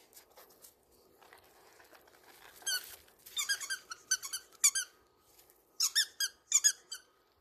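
Short, sharp, high-pitched squeaks with a slight bend in pitch: a single squeak, then a quick run of about six, then a few more near the end.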